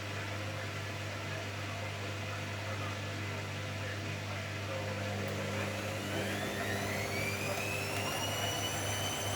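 Hoover washing machine in its spin cycle: a steady motor hum, then a little past halfway the motor's whine rises in pitch as the drum speeds up, levelling off near the end.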